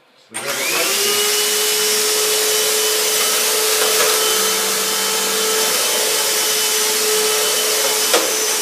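Kenmore Quick Clean bagless vacuum cleaner switched on, its motor spinning up within half a second to a steady whine and running at full speed, then switched off with a click near the end as it starts to wind down.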